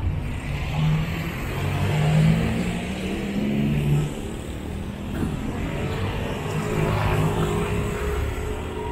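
Street traffic: car engines running and passing close by, with a steady engine tone coming in about halfway through.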